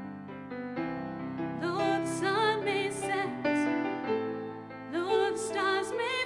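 Background music: a slow song with piano accompaniment. A singing voice with vibrato comes in about a second and a half in.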